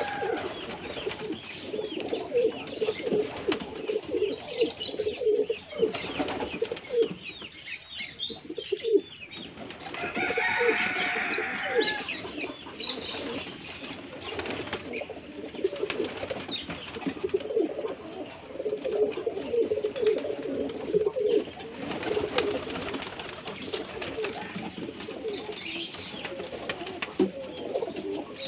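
A flock of domestic pigeons cooing, many low coos overlapping without a break.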